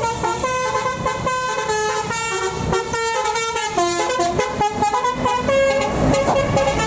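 Bus telolet "basuri" horn playing a melody: a quick run of multi-tone air-horn notes, each changing pitch every fraction of a second, over the low running of the bus.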